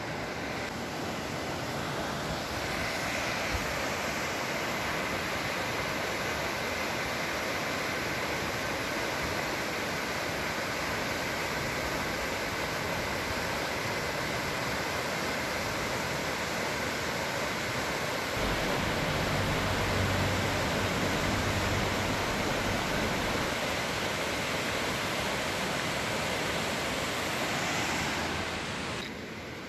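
Steady rush of moving water, a broad even hiss, with a deeper low sound joining for a few seconds past the middle.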